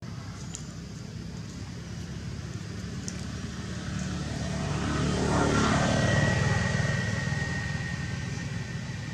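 An engine passing by: a low, steady hum grows louder to a peak about six seconds in, then fades.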